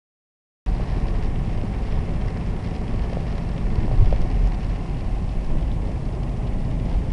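Steady low rumble of a car driving on a wet road, heard inside the cabin: engine and tyre noise with a faint hiss of water, starting about half a second in.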